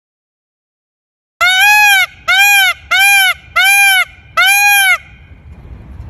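An animal calling five times in quick succession, each call about half a second long and arching up then down in pitch, with a faint rumble after the last one.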